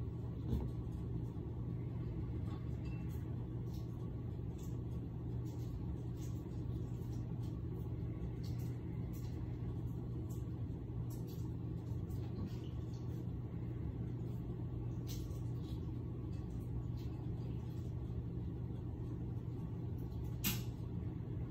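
Steady low machine hum, with scattered light clicks and taps from work at a kitchen counter; one sharper tap comes near the end.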